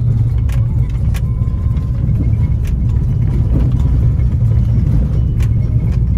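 Four-wheel-drive vehicle driving on a rough road: a steady, loud low rumble with scattered sharp knocks and rattles.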